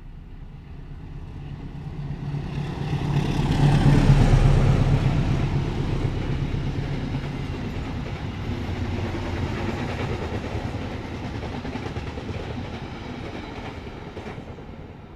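Passenger train passing close by at speed. The sound swells to its loudest about four seconds in, as the front of the train goes past, then continues as a long run of carriages rumbling over the rails, easing slowly.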